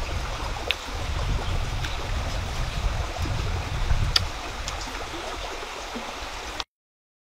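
A stream running steadily over rocks, with a low rumble and a few light clicks. It cuts off suddenly near the end.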